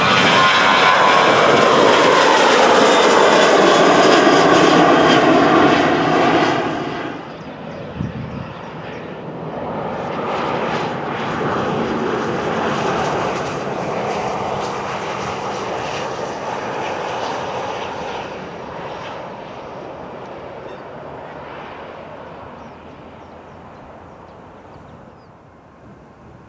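Boeing 737-900 jet passing close on take-off: a loud roar of its CFM56 engines with a whine that falls in pitch as it goes by, cut off about seven seconds in. Then a Bombardier Global Express business jet on landing approach, its engines quieter, swelling and then slowly fading away.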